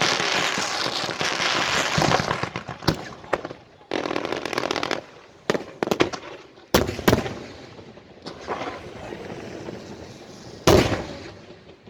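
Fireworks going off: a dense hissing spray with fast crackling over the first few seconds, then scattered sharp cracks and several loud bangs, the loudest about eleven seconds in. Among them is a spinning wind-fire wheel firework (風火輪).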